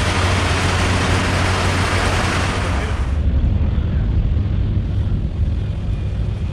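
Heavy rain falling on a metal shed roof, a dense loud hiss that cuts off about three seconds in. After it, a steady low rumble with far less hiss.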